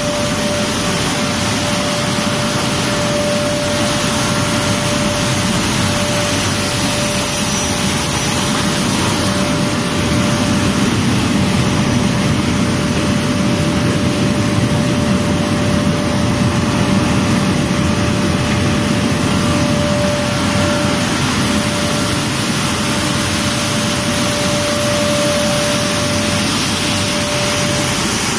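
Wheat flour milling plant running: roller mills and blowers making a loud, steady machine din with a constant mid-pitched hum.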